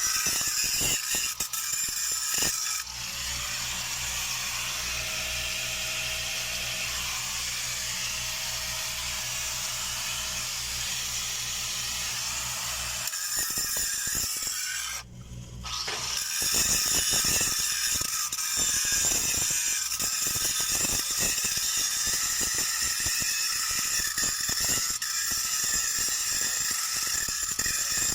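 Steel pipe joint being worked with stick (SMAW) welding and grinding: continuous harsh crackling and hiss of metalwork. A steady low hum runs underneath from about three to thirteen seconds in, and the noise drops out briefly about fifteen seconds in.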